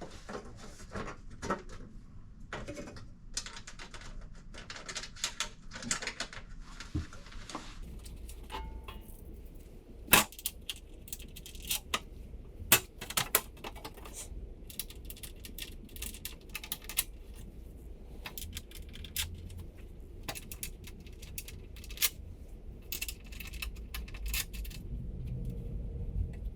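Irregular sharp metallic clicks and clinks of hex nuts being handled and threaded onto bolts to fasten the front plate.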